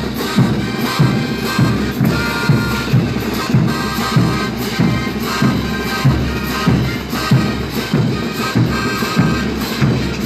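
Mexican banda brass band playing, with wind and brass over bass notes and a steady beat of about two a second.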